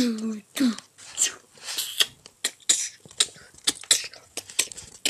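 A couple of short vocal sounds from a child at the start, then irregular rustling, swishing and small knocks of handling noise as the camera moves about among the bedding.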